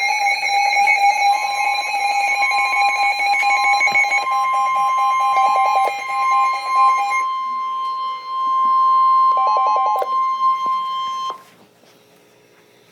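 Emergency Alert System attention tones: loud, steady electronic alert tones sounding together. The lower tone stops about seven seconds in, and the higher tone carries on alone until it cuts off about eleven seconds in. They signal the start of a severe thunderstorm warning broadcast.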